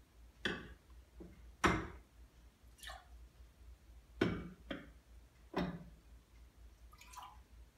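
Rinse water poured and dripping from one small metal communion cup into another. Several short, sharp clinks and knocks come as the cups are handled and set down, the loudest a little under two seconds in.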